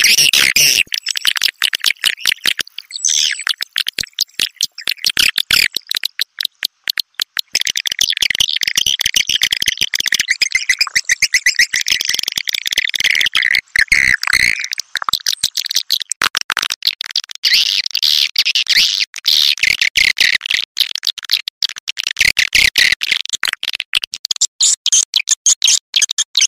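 Swiftlet calls: a dense, high-pitched chatter of rapid chirps and clicks in fast, choppy bursts.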